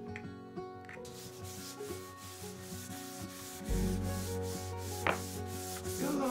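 A sponge rubbing beeswax into bare wooden floorboards in quick back-and-forth strokes, a scrubbing swish repeating about two or three times a second, starting about a second in. A low rumble joins a little past halfway and there is a single knock about five seconds in, over faint background music with held notes.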